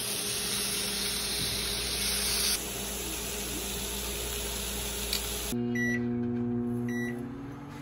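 Pork belly and shrimp sizzling on a grill pan over a portable gas stove, a steady hiss. About five seconds in it gives way to a microwave oven humming as it runs, with two short keypad beeps.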